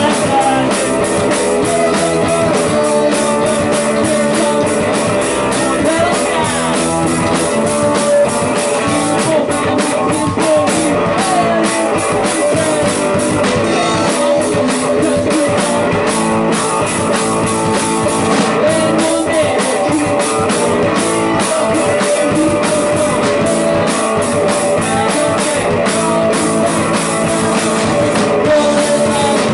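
Loud rock music played by a band, with a drum kit keeping a steady beat throughout.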